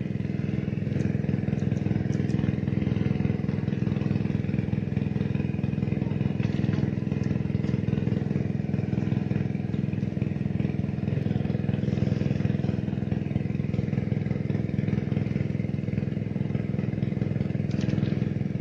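A small engine running steadily at one constant speed, an even hum that holds the same pitch throughout.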